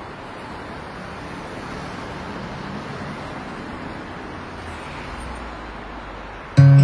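Steady city traffic noise, slowly growing louder. Near the end an acoustic guitar chord is strummed loudly and rings on, opening the song.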